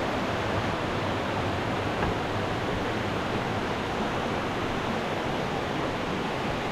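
Waterfall rushing steadily: an even wash of falling-water noise that holds at one level.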